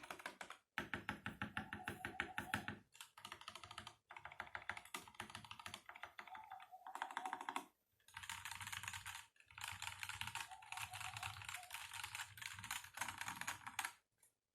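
Mechanical keyboard with stock Outemu Red linear switches being typed on quickly, in runs of rapid keystrokes separated by short pauses.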